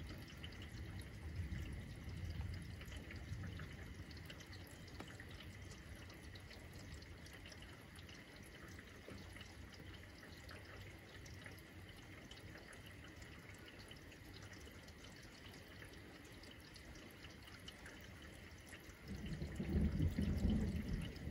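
Steady rain dripping and pattering, with a soft low rumble of thunder in the first few seconds. A louder rumble of thunder starts suddenly near the end.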